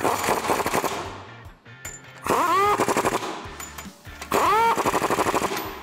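Impact wrench hammering 22 mm nuts tight onto leaf-spring U-bolts. It comes in two loud bursts, about two and four seconds in, each opening with a rising whine as the motor spins up before the rapid rattle of the hammer.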